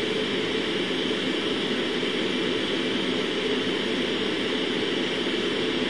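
Steady fan and air-handling noise: an even hiss and hum that does not change, with no distinct sound from the robot arm's motion.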